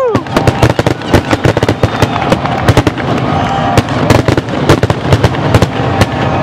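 Fireworks grand-finale barrage: many shells bursting in quick succession, a dense, uneven string of sharp bangs and crackles several times a second.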